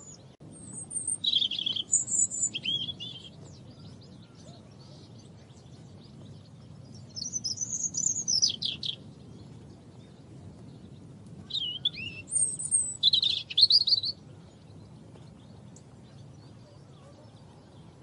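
European robin singing: three short, high, warbling phrases a few seconds apart, over a faint low steady background rumble.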